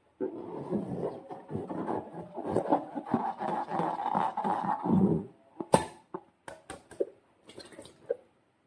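Slime squelching and crackling as it is squeezed and worked by hand, for about five seconds, followed by a few sharp clicks.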